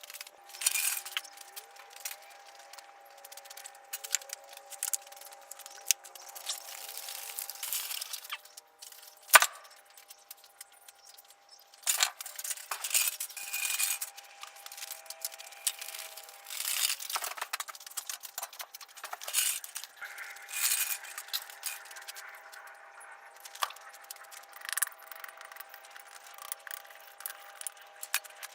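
Irregular clinks, rattles and knocks of metal tools and gear being handled and set down, with one sharper knock about nine seconds in.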